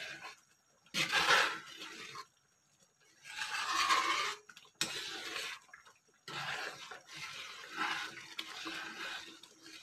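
A metal spoon stirring thick, bubbling chocolate rice porridge in a metal pot: wet sloshing and scraping against the pot in uneven bursts, with short pauses between strokes.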